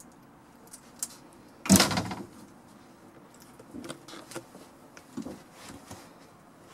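A wooden interior door bangs once, sharply, about a second and a half in, followed by a few faint knocks and shuffles.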